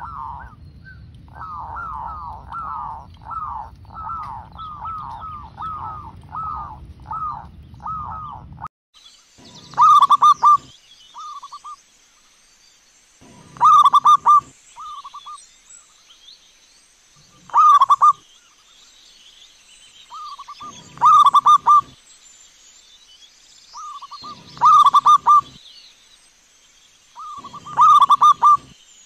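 Zebra doves (perkutut) cooing. First comes a quick run of short coos over a low rumble. After about nine seconds the bird gives loud cooing phrases about every three and a half seconds, each followed by a softer short note, with a faint steady high whine behind.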